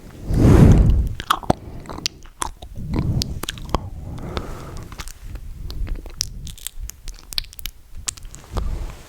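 Close-miked ASMR mouth sounds: many quick wet clicks and smacks of tongue and lips, with a louder low swell about half a second in and another around three seconds in.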